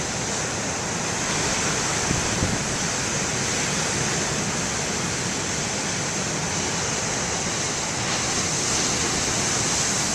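Big ocean waves breaking and washing in: a steady rushing surf that swells a little louder about two seconds in and again near the end.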